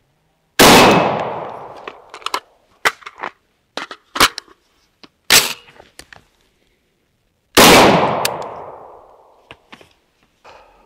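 Two AR-15 rifle shots about seven seconds apart, each fading out over more than a second, and between them a series of sharp metallic clacks from a fast magazine change on the rifle.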